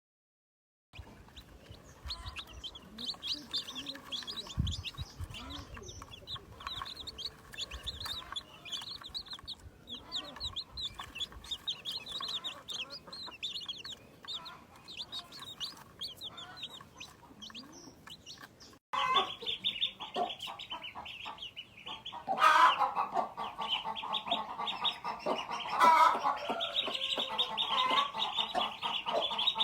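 Domestic chicks peeping rapidly and continuously while hens cluck. About two-thirds of the way through, the sound cuts abruptly to a louder, busier stretch of clucking and calling.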